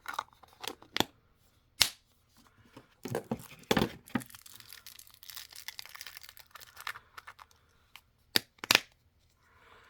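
Toy packaging being handled by hand: a few sharp plastic clicks, then several seconds of crinkling and tearing, then two more sharp clicks near the end.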